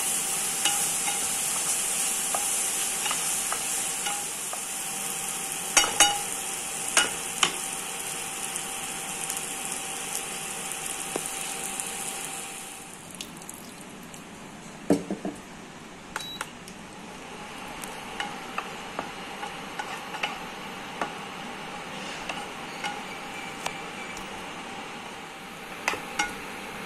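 Onion, green pepper and carrot strips sizzling in oil in a nonstick frying pan, stirred with a wooden spatula that knocks and scrapes against the pan. About halfway through, the sizzle dies down as a watery sauce goes in. After that, quieter stirring with spatula taps carries on.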